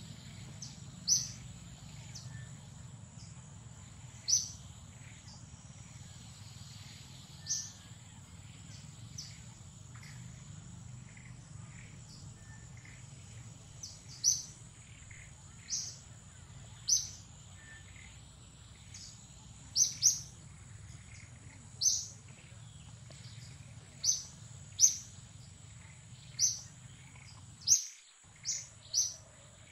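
Short, sharp bird chirps, about fifteen, repeating irregularly and coming more often in the second half, over a steady high-pitched insect whine.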